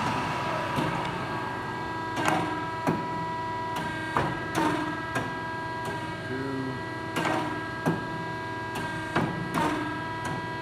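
Freshly rebuilt Marvel V10A band saw running: a steady machine whine with irregular sharp clicks over it.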